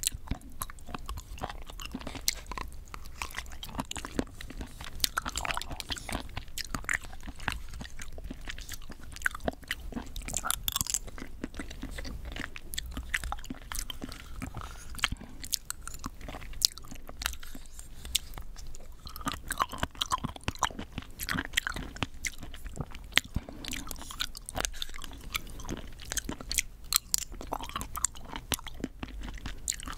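Close-miked eating of Nanaco pudding with chewy coconut jelly pieces: chewing and mouth sounds made of many small, irregular sharp clicks, with a plastic spoon scooping from the plastic cup.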